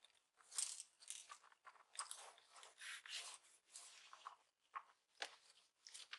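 Faint, irregular rubbing strokes of a soft cloth wiping a laptop's LCD screen damp with glass-cleaning spray, about ten short swipes at uneven spacing.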